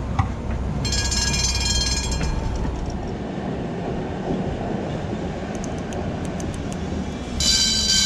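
Tram running on rails with a steady low rumble, its wheels letting out a high-pitched squeal for about a second near the start and again near the end.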